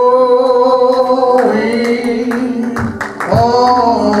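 A preacher singing long held notes into a handheld microphone. A new phrase slides up into pitch about three seconds in.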